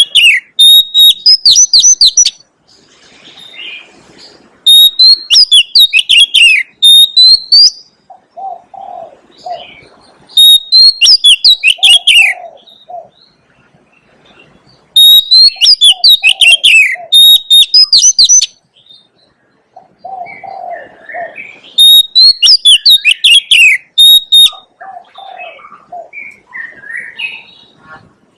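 Oriental magpie-robin singing loud whistled phrases of sweeping and trilled notes, five phrases a few seconds apart. Softer, lower calls come in the pauses between phrases.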